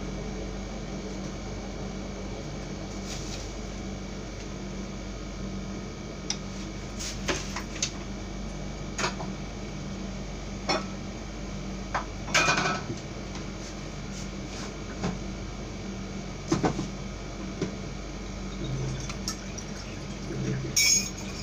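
Steady low hum of a window air conditioner, with scattered clinks and knocks of dishes and utensils being handled, the loudest about halfway through and another near the end.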